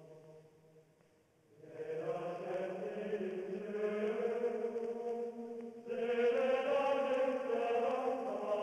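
Soundtrack music of a choir chanting in long, held notes. The music dips almost to nothing about a second in, a new phrase enters just before two seconds in, and a louder phrase starts about six seconds in.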